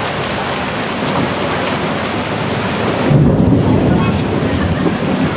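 Steady rushing and splashing of floodwater in a flooded street, with a heavy low rumble coming in about three seconds in.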